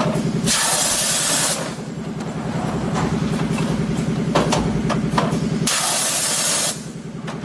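Fully automatic PET bottle blow moulding machine running through its cycle: a steady mechanical hum with clanks of the moving parts, broken twice, about five seconds apart, by a loud hiss of compressed air lasting about a second.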